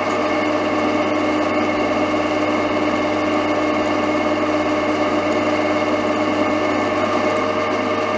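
Drilling machine running steadily with a twist drill cutting down into a steel channel section: a constant machine hum carrying several held tones.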